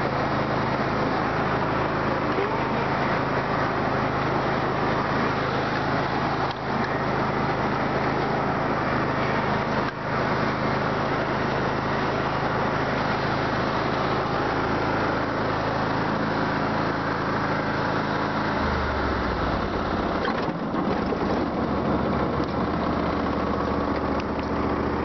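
An engine running steadily, its low hum shifting to a lower note about two-thirds of the way through.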